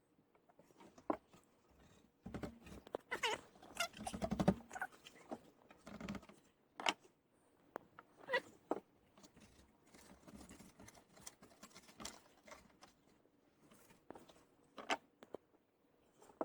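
Scattered light knocks, taps and scrapes from shims and a window frame being handled and shifted in its opening, with a busier stretch of rubbing and knocking about two to five seconds in.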